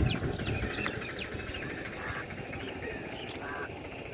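Birds calling: a quick run of sharp whistled chirps sliding up and down in pitch in the first second or so, then a few fainter, sparser calls, over a steady low background hiss.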